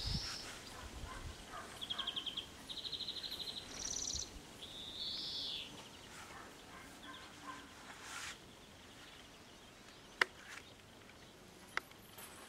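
Bird song: short rapid high trills and rising whistled notes repeated several times in the first half, then a couple of sharp clicks near the end.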